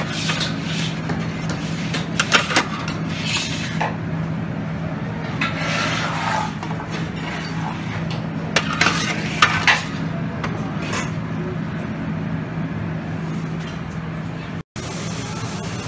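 Metal serving tongs clinking and scraping against stainless-steel buffet trays and a plate while raw shrimp are picked up, as scattered sharp clinks. A steady low hum runs underneath, and the sound cuts out for an instant near the end.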